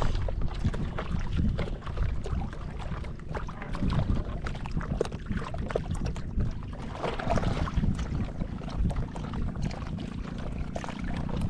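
Wind buffeting the microphone over water lapping against a small outrigger boat's hull and bamboo float, with scattered light clicks and knocks.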